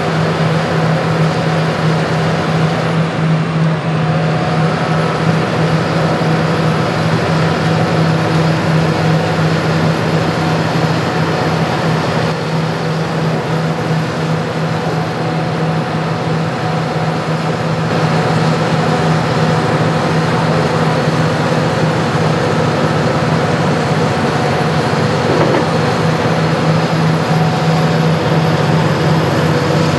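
Hitachi Zaxis 350 LCN excavator's diesel engine running steadily with a strong low hum, easing off slightly for a few seconds in the middle.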